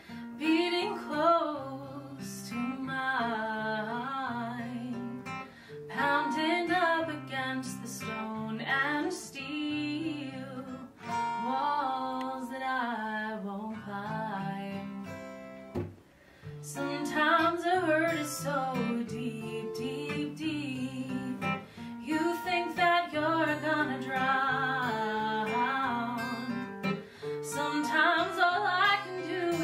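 A woman singing to two acoustic guitars, with a short break in the music about halfway through.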